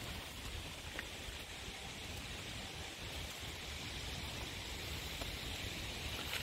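Steady outdoor background noise: an even hiss with a low, unsteady rumble and no distinct events.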